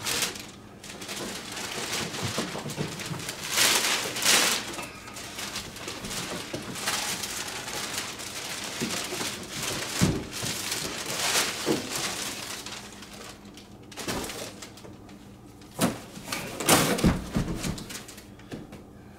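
Cardboard box and plastic packaging rustling and scraping as a large model airplane fuselage is worked out of its box, with a few knocks against the box.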